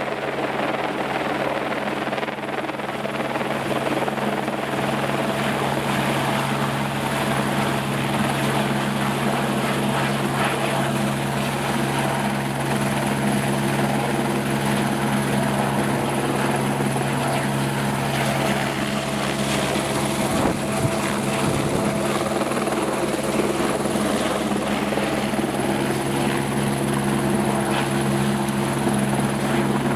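Helicopter running steadily: a continuous engine and rotor sound with a few constant low tones that hold unchanged throughout.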